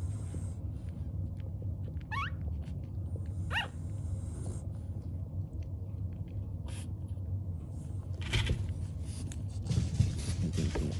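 Newborn French bulldog puppies squeaking: two short rising cries, about two seconds in and again a second and a half later, over a steady low hum. Louder shuffling noises come near the end.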